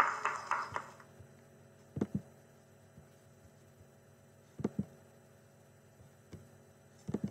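A classroom of children and their teacher clapping, played back from an online video, cutting off suddenly about a second in. Then a faint steady electrical hum, with pairs of quick mouse clicks about two and a half seconds apart.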